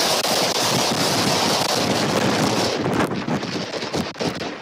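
Strong tropical-storm wind buffeting the nest cam's microphone: a loud, steady rushing that eases somewhat about three seconds in.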